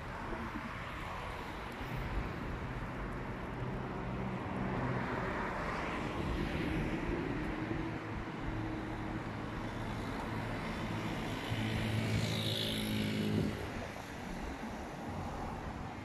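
City street traffic: motor vehicles passing with a steady engine hum and road noise. Two passes are louder, one about a third of the way in and one near the end, and the second cuts off abruptly.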